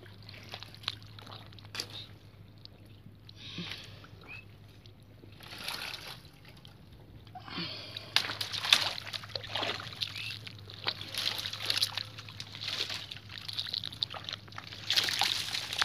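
Hands splashing and squelching in shallow muddy water, in irregular sloshes and wet slaps that grow busier and louder about halfway through.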